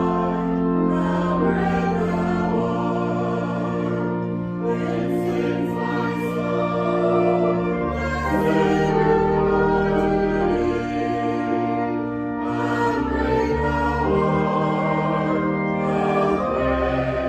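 Choir singing slow sacred music with accompaniment: long held chords over a low bass, changing every second or two.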